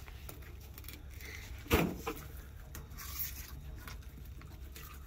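Filleting knife scraping and cutting through snapper on a metal fish-cleaning table, with one sharp knock about two seconds in, over a steady low hum.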